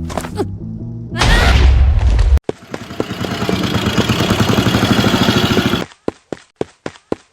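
Edited cartoon sound effects: a heavy booming sound that cuts off suddenly, then about three seconds of dense rapid crackling like a burst of gunfire, then sharp clicks about three a second.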